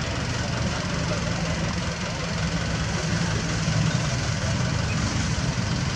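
Toyota Dyna tipper truck's engine running steadily at low revs, a low even rumble from the truck stuck in soft dirt.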